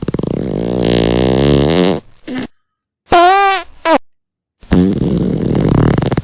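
Loud, rapid, sputtering fart sounds in several blasts separated by abrupt dead silences, one of them a short squeaky tone that rises and falls about three seconds in. They are passed off as the motorbike's strange noise when the starter is pressed.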